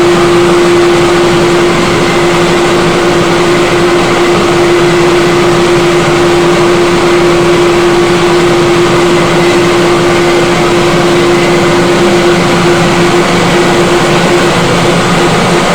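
Tripe descaling machine running steadily: a constant motor hum at one pitch under a continuous whirring, rushing noise.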